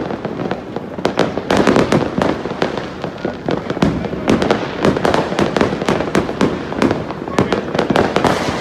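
Aerial fireworks going off in a dense, irregular run of bangs and crackles, many shots a second with no let-up.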